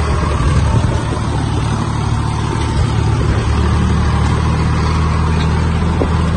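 Swaraj 855 tractor's three-cylinder diesel engine running steadily under way, heard up close from the driver's seat; its note shifts slightly about halfway through.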